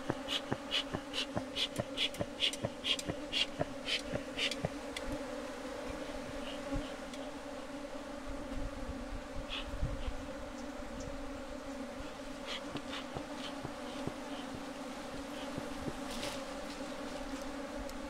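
Steady, even buzzing of a large cluster of honeybees massed on open comb and around a hive box. Over the first four seconds or so, a repeated high chirp, about three a second, sounds over the buzz.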